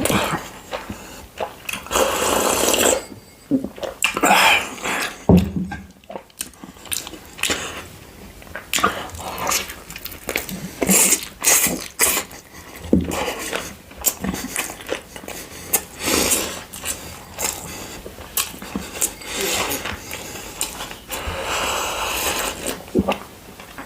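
Close-miked eating sounds: irregular wet chewing, crunching and mouth clicks as someone eats fried chicken and noodles.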